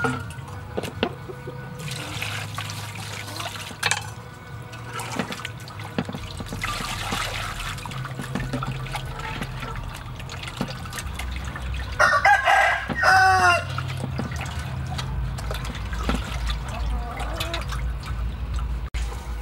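A rooster crows once about twelve seconds in, the loudest sound, with hens clucking at other times. Underneath come water sloshing as meat is rinsed in a metal basin, and a few knocks of a knife on a wooden chopping block.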